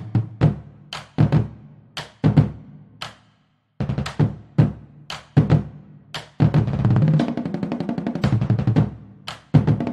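Drum kit playing a written part at 115 beats a minute: cymbal and snare strokes with tom fills, a short silent break about three seconds in, then a dense run of fast tom and snare fills over the second half.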